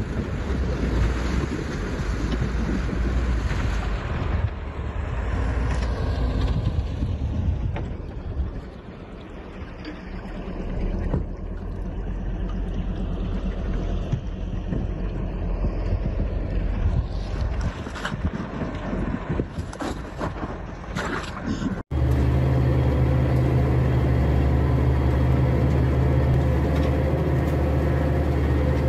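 A heavy truck's diesel engine labours unevenly as the truck churns through deep mud, with wind on the microphone. About two-thirds of the way through, the sound cuts suddenly to a loaded forestry forwarder's diesel engine running with a steady, even low hum.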